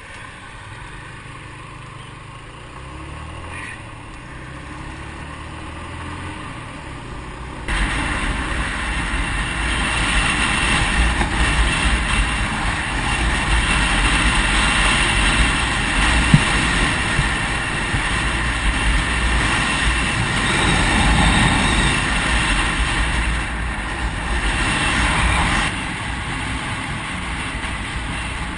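Motorcycle engine pulling away, its pitch climbing in steps as it goes up through the gears. About eight seconds in the sound jumps to much louder riding: heavy wind noise on the helmet-camera microphone with the engine running underneath.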